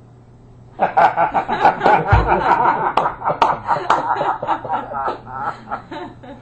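A group of people laughing at a joke's punchline: the laughter breaks out about a second in and slowly dies down, with a short low thump about two seconds in.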